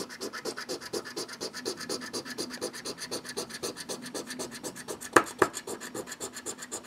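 A coin scratching the coating off a lottery scratch ticket in quick, even back-and-forth strokes, about seven a second, with two sharper clicks about five seconds in.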